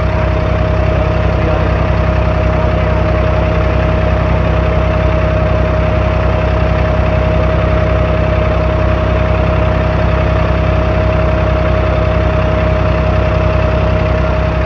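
An abra water taxi's inboard diesel engine running steadily under way, heard from on board, with a low hum and a thin steady whine above it.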